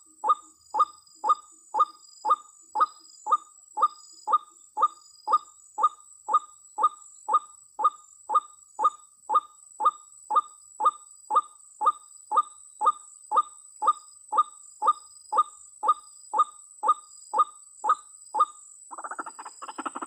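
White-breasted waterhen (ruak-ruak) calling: a short note that falls slightly in pitch, repeated about twice a second in a steady, monotonous series. The calls stop about a second and a half before the end, when a denser, rapidly pulsing sound starts.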